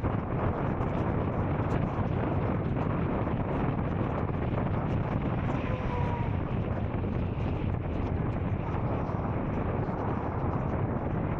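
Royal Enfield Scram 440's single-cylinder engine running steadily while riding, with wind noise on the microphone.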